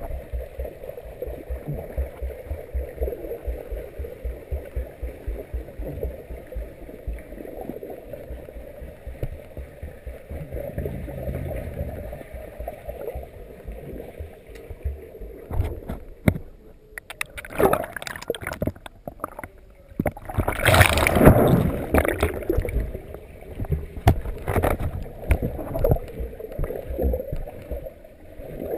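Pool water heard through an underwater camera's housing as a swimmer kicks along with a kickboard: a muffled rush with regular low pulses. About halfway through it turns into loud, irregular sloshing and bubbling bursts, the loudest a few seconds later.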